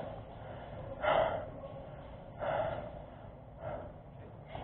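A person breathing heavily, with four breaths coming about a second and a quarter apart.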